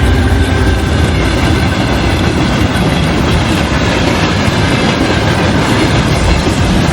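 A train rolling along rails, its wheels clattering steadily at an even level.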